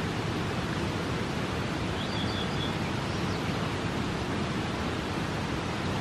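Steady rush of river water and waterfall, an even roar with no rise or fall. A brief high chirp sounds about two seconds in.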